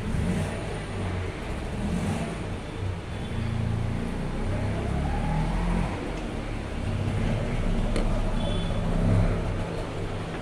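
Low, steady rumble of motor vehicle engines, with a faint rising pitch about halfway through.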